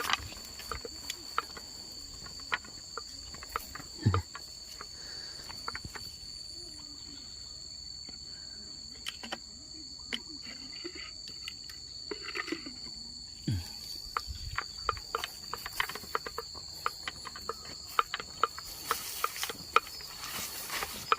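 Insects singing a steady, high continuous trill in two pitches, with scattered sharp clicks and taps over it; the trill fades under louder noise near the end.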